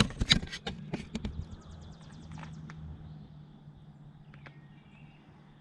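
Several sharp knocks and clicks in the first second and a half, then a quick run of light ticks and a faint steady low hum that fades away.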